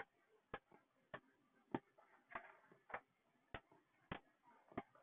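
Faint metronome ticking at an even tempo, about five clicks every three seconds.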